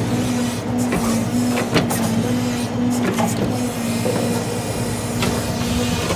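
Peterbilt log truck's diesel engine running steadily to drive the truck-mounted grapple loader, with a steady hydraulic whine and a few short knocks as logs are handled.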